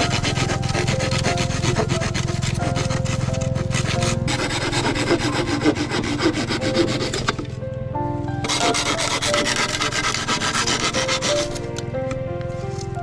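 Rapid rasping of a tool working wood, in two spells: one running to about seven seconds in, then a shorter one of about three seconds. Soft background music with held notes plays underneath.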